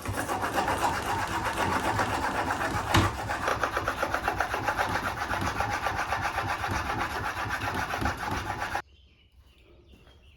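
Steel plane iron being rubbed back and forth on a diamond sharpening stone, a steady rasping scrape of quick, even strokes as the iron is honed. There is a single knock about three seconds in, and the scraping stops abruptly near the end.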